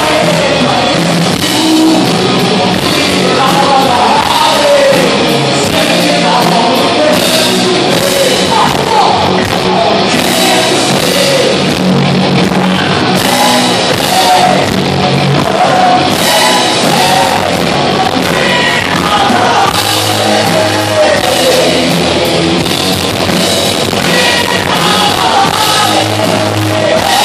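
Live 80s hair-metal cover band playing loud rock: a lead singer over electric guitars, bass guitar and drums.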